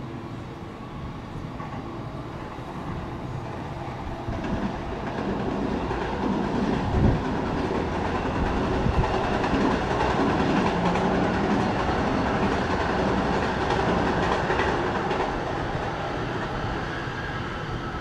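A train passing by. Its sound swells from about four seconds in, is loudest through the middle and eases off near the end, with a few knocks along the way.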